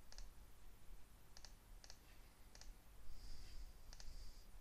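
Computer mouse button clicking about five times, each click a quick press and release, faint; a soft hiss rises and fades between the last clicks.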